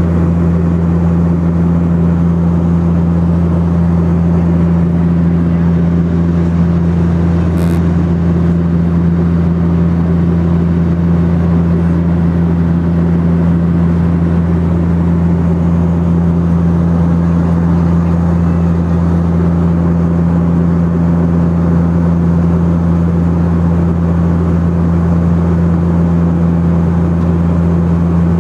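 Turboprop airliner's engines and propellers droning steadily: a constant low hum carrying a strong, unchanging deep tone.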